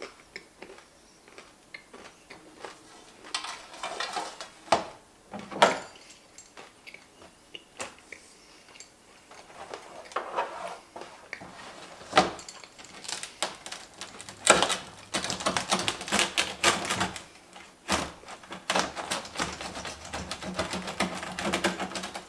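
A rolling pizza cutter crunching through baked crust and rattling on the metal pizza pan, a dense run of quick clicks and scrapes over the second half. Before that come scattered clicks and a sharp knock about five and a half seconds in.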